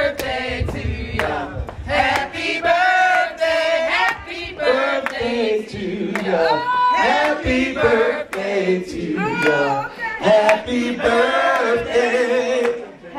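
A group of people singing together, loud and close, with scattered sharp claps among the voices.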